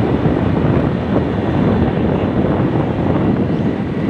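Steady rush of wind buffeting the microphone over the rumble of a moving vehicle on the road.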